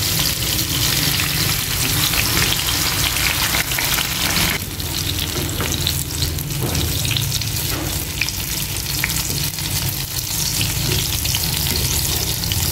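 Slabs of soy-sauce-marinated tofu shallow-frying in hot oil in a pan, sizzling and crackling steadily.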